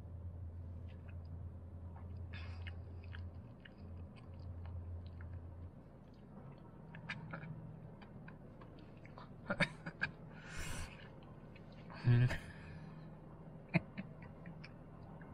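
A person drinking and tasting a drink: sipping and swallowing, then small lip smacks and tongue clicks, with a breathy exhale about ten seconds in and a short grunt about twelve seconds in. A low hum underneath stops about six seconds in.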